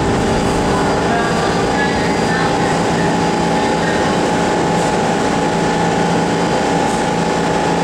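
Pullman Standard R46 subway train standing at the platform with its doors open, its onboard equipment giving a steady hum with several held tones under a busy underground station.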